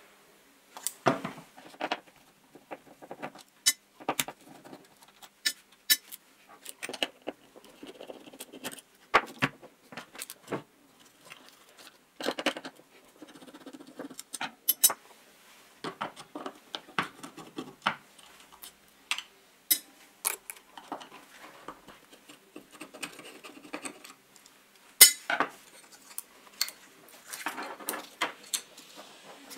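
Irregular metallic clicks, clinks and taps from a screwdriver and small parts against the open metal handle housing of a vintage Shinko right-angle drill as its switch and wiring are taken out, with one sharper knock near the end.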